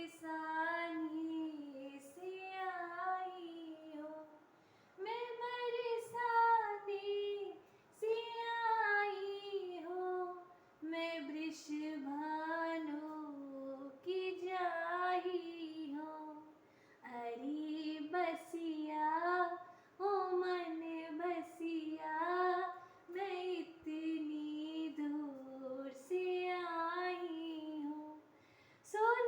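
A single high voice singing a Hindu devotional bhajan to Krishna, unaccompanied, in short melodic phrases with brief pauses between them.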